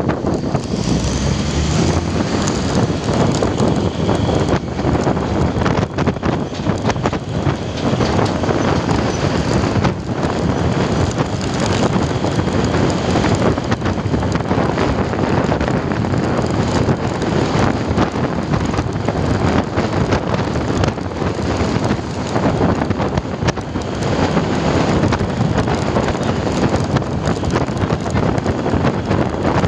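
Wind rushing over the microphone on a moving motorcycle, steady and loud, with the bike's engine and road noise mixed in underneath.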